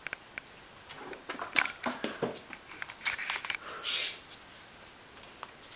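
Scattered light clicks and scuffs as a cat knocks fridge magnets about, with a few short rustling sounds.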